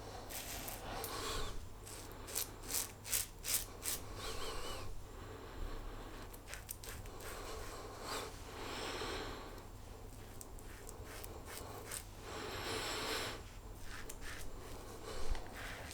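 Quad edge safety razor blade scraping through lather and stubble in short strokes, a quick run of them about two to four seconds in and longer rasping strokes later.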